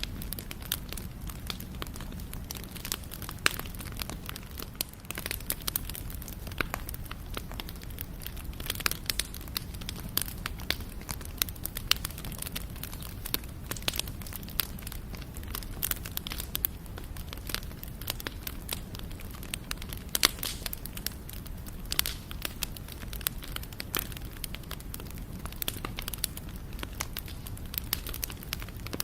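Wood campfire crackling: frequent irregular sharp pops and snaps over a steady low rumble.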